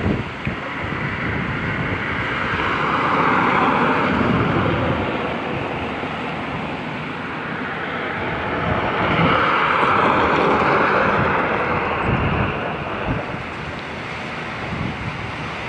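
Road and wind noise from a moving car: an even rush that swells twice, about three seconds in and again around ten seconds in.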